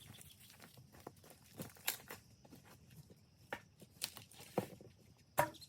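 Scattered crackles and snaps of dry brush and leaves being trodden and handled, with a sharper knock a little before the end.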